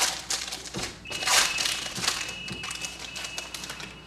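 A trading-card pack's wrapper being torn open and crinkled by hand: a run of irregular crackly rustles, loudest about a second and a half in.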